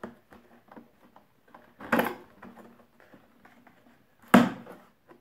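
A knife blade slitting the packing tape on a cardboard box: two short scraping rasps about two and a half seconds apart, the second the loudest, with light taps and clicks of cardboard handling between.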